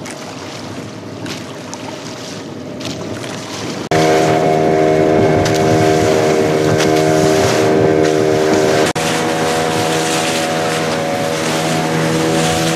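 Wind and water noise, then about four seconds in a loud engine drone cuts in abruptly. The engine runs steadily at one constant pitch.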